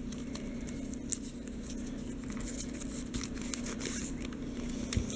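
A thin strip of plain white paper crinkled and twisted between the fingers, making soft, irregular crackling, over a steady low hum.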